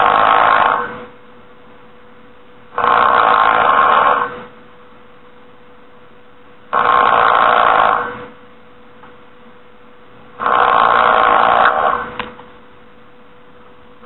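A person snoring loudly, one snore of about a second and a half roughly every four seconds, with a faint steady hum underneath.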